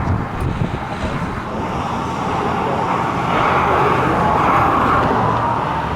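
Road traffic noise: a steady rush of passing vehicles that grows louder through the middle and eases off near the end.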